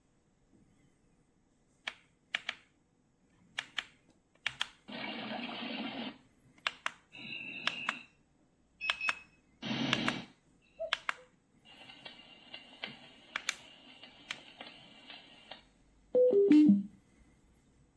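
Buttons clicking on a lamp, alarm clock and Bluetooth speaker unit, with short bursts of hiss and high beeps from its speaker. Near the end it plays a loud falling four-note tone.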